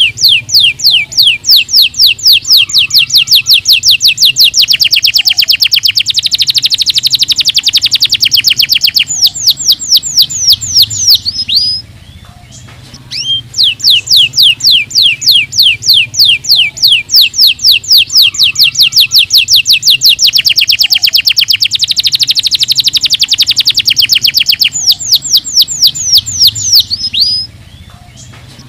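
Domestic canary singing: long runs of rapid trills made of falling notes repeated several times a second, speeding up into fast rolls in the middle of each run, with a short pause about twelve seconds in before the song starts again.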